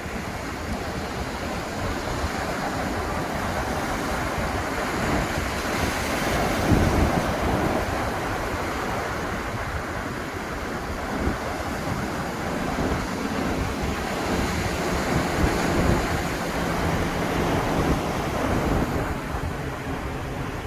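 Ocean surf breaking and washing up the beach, a continuous rushing that swells about a third of the way in and again about three quarters through, with wind on the microphone. A faint low drone sits under it in the second half.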